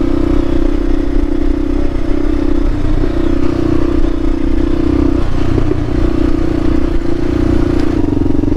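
Kawasaki KLR650's single-cylinder four-stroke engine running steadily as the bike rides along a dirt trail. Its note wavers briefly about three and again about five seconds in.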